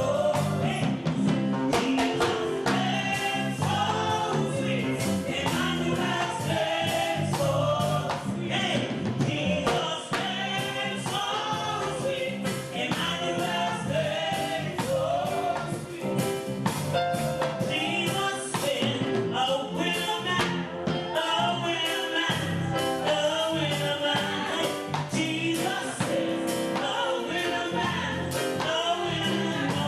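Gospel music: a choir of voices singing over a band with bass and percussion.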